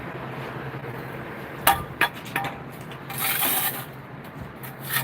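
Hand tools clinking and scraping on stone during stone laying: two sharp ringing clinks a little under two seconds in, a lighter knock, then a brief scrape about three seconds in, over a steady low hum.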